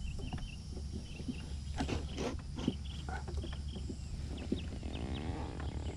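Electric mobility scooter driving over bumpy grass: a steady low motor hum with irregular knocks and rattles as the scooter jolts, and faint high chirps. About five seconds in, a tone briefly slides in pitch.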